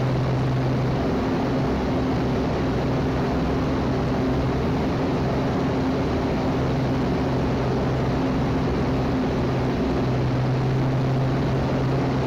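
Engine and propeller of a Van's RV-7 with a UL Power engine droning steadily, heard inside the cockpit in a steep descent, with the rush of airflow over the canopy.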